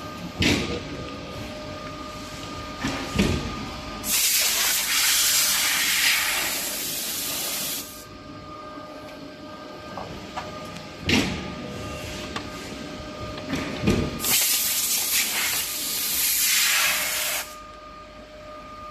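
1200-ton hydraulic press cold-forging gears: a steady hum from its hydraulic system, clunks as it works, and two long loud hisses of about four and three seconds, one in each cycle.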